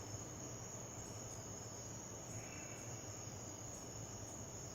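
Crickets trilling steadily and high-pitched over a faint low hum.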